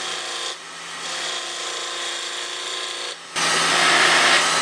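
A gouge cutting a spinning segmented wooden ring on a wood lathe, roughing it down toward size. The cutting noise comes in passes, dropping out briefly about half a second in and again after three seconds, and the last pass is the loudest.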